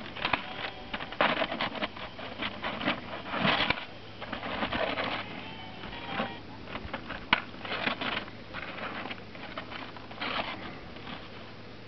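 Jiffy Pop popcorn popping inside its swelling foil pan on a gas camp stove: many quick, irregular pops, dense at first and thinning out toward the end.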